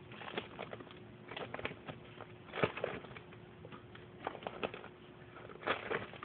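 Faint, irregular clicks and knocks, loudest about two and a half seconds in and again near the end, over a steady low hum.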